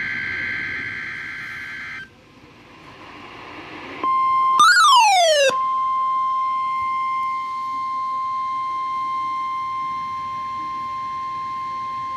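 NOAA Weather Radio weekly test. The tail of a SAME digital header burst ends about two seconds in, followed by a faint rising static hiss. About four seconds in, the steady 1050 Hz weather alert tone starts and holds, with a falling sweep over it for its first second and a half.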